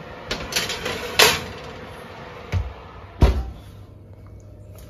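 A metal baking tray sliding into an oven, scraping over the wire rack, followed by the oven door being shut: a thump and then a louder knock about three seconds in.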